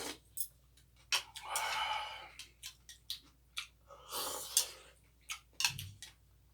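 Close-up eating sounds: quick clicks of a spoon and chopsticks against dishes and chewing, with two longer noisy stretches about a second in and about four seconds in.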